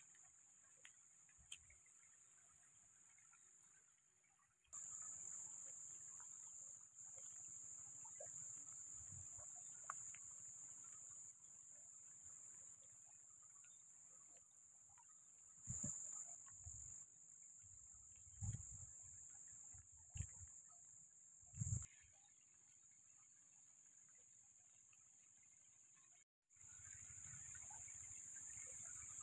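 Steady high-pitched insect chorus with no train passing. A few dull low thumps come about halfway through.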